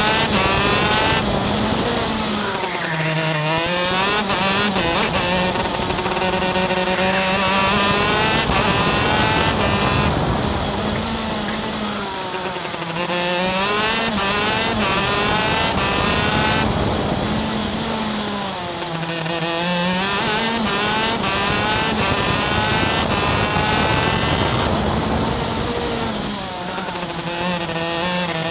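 Onboard sound of a racing superkart's two-stroke engine at racing speed, its revs climbing on the straights and dropping sharply before climbing again about 3, 13, 19 and 27 seconds in as it slows for corners.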